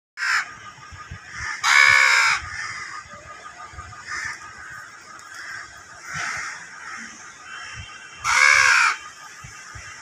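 Baby crow calling: two loud, harsh caws, about two seconds in and near the end, with a few shorter, softer calls between them. These are the begging calls of a young crow being hand-fed.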